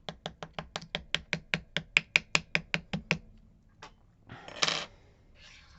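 A rapid, even run of small clicks, about seven a second for some three seconds, then a short scraping rustle, from the pin-tumbler lock's small metal parts being worked by hand.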